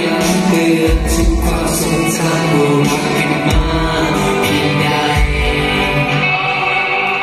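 A male singer singing a song live into a handheld microphone over accompanying music with a bass line.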